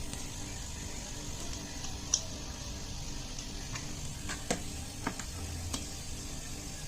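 A steady hiss of air escaping from the fridge's refrigerant line while the sealed system is being purged of dust and moisture before evacuation, over a low hum, with a few sharp clicks of tools on the fittings.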